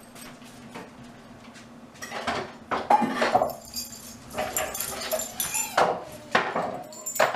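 Miniature schnauzers whining and barking in short, irregular bursts from about two seconds in, as they wait to be fed, with dishes clinking.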